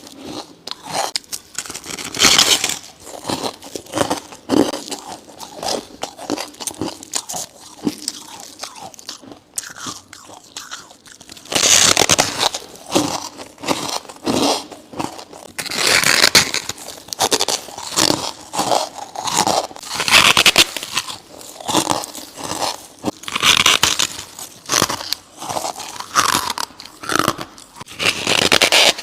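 Bites into chunks of freezer frost, each giving a loud close-up crunch, with quieter crackling between them. The bites come faster and louder, about one a second, from around twelve seconds in.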